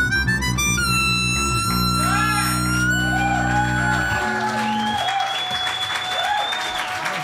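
Harmonica and bowed double bass closing a tango: quick bending harmonica notes, then a long held harmonica note over sustained low bass notes that stop about four seconds in. Near the end the audience starts to clap and cheer.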